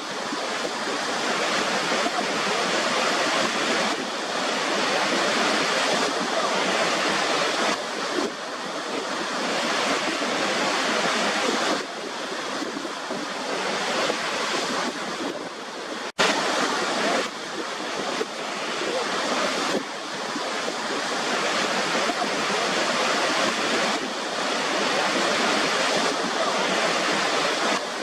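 Waterfall, rushing water falling in a steady loud hiss that swells a little every few seconds, cutting out for an instant about sixteen seconds in.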